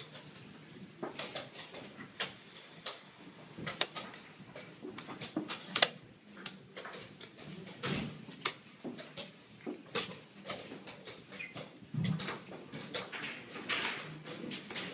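Chess pieces being set down on a wooden board and chess clock buttons being pressed in fast blitz play: a quick, irregular run of sharp clicks and knocks, several each second.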